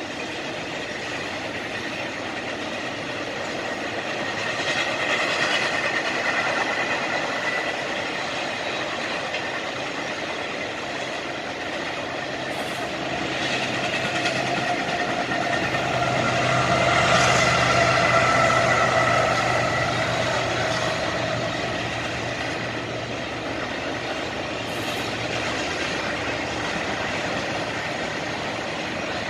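A freight train rolling past, its wheels clattering over the rails, with a thin high ringing tone over the rumble. A low hum comes in about twelve seconds in, is loudest a little past halfway, and fades near the end.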